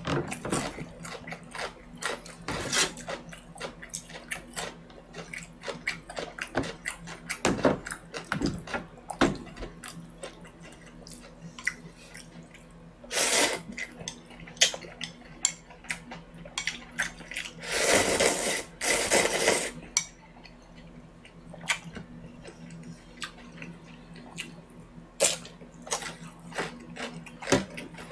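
Eating pork noodle soup with chopsticks: small clicks and taps of the chopsticks against the bowl and plastic tray, with chewing, and two spells of slurping from the bowl, a short one about halfway through and a longer one of about two seconds soon after.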